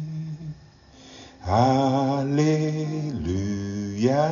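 A man singing a slow gospel chorus unaccompanied or nearly so, holding long notes; the first note ends about half a second in, and after a short pause a new drawn-out phrase begins about a second and a half in.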